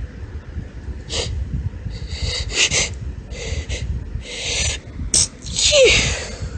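A woman's hitching, gasping in-breaths building up, then a high-pitched sneeze near the end with a short falling vocal note.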